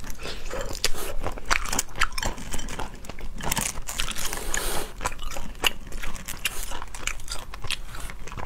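Cooked crayfish being eaten close to a lapel microphone: shells cracking and crunching as they are bitten and pulled apart by hand, with chewing, in many quick irregular crackles.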